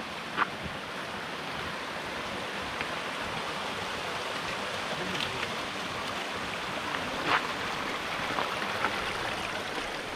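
Steady rush of flowing stream water. A few short sharp taps sound over it, the loudest about seven seconds in.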